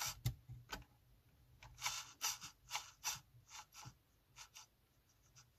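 Faint, irregular short clicks and scrapes, about a dozen, from fingers pressing the buttons of an RC transmitter and handling the car's front wheel.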